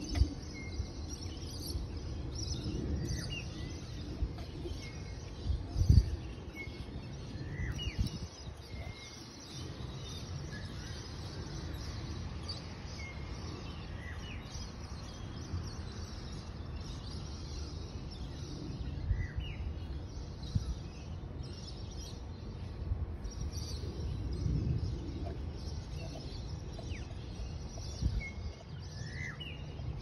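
Lakeside outdoor ambience: birds give short scattered chirps throughout over a steady low rumble, with two brief low thumps in the first third.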